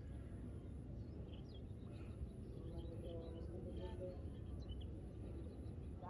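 Quiet riverside ambience: a steady low rumble of wind on the microphone, with scattered faint bird chirps and a few faint distant voices.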